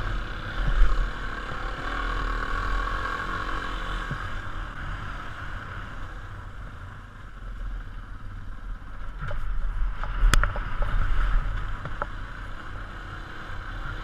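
A 250 cc four-stroke single-cylinder dual-sport motorcycle running along a dirt trail, heard from the rider's helmet, with a steady low rumble throughout. A few sharp knocks and clatters come between about nine and twelve seconds in, where the sound also swells louder.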